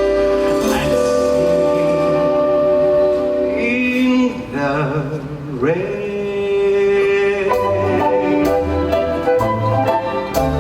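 Orchestra playing with a male singer holding long notes and sliding through a phrase midway; toward the end the accompaniment turns to a bouncy, rhythmic figure with plucked bass notes.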